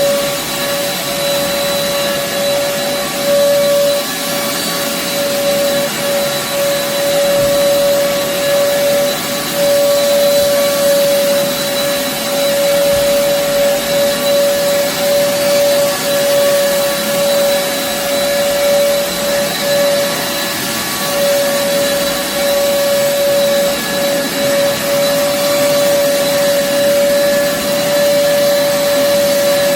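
An old bagless upright vacuum cleaner running on carpet with a steady whine, which the owner says has lost its suction even after cleaning and new filters.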